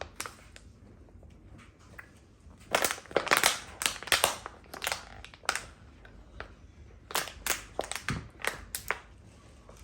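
Empty plastic bottle being crushed and crinkled in short bursts, a cluster of crackles from about three to five seconds in and another from about seven to nine seconds.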